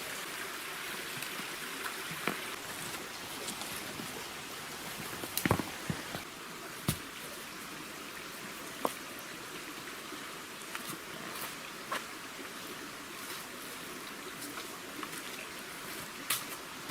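Steady rushing of a stream, with a few sharp knocks now and then, the loudest cluster about five seconds in.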